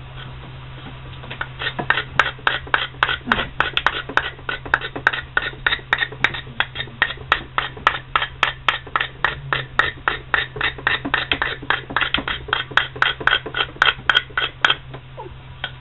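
Pocket knife shaving wood from the end of a wooden sledgehammer handle, trimming the tip down to fit the hammer head's eye. Quick scraping strokes come about four a second, starting a second or so in and stopping shortly before the end, over a steady low hum.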